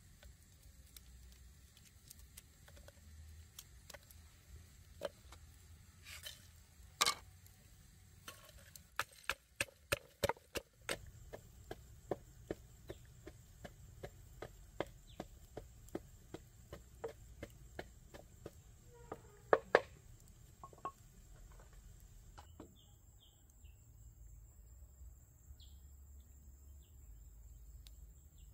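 A blade chopping on wood in irregular sharp knocks, with a quick run of chops about ten seconds in. A steady high insect buzz runs underneath until it cuts out about two-thirds of the way through.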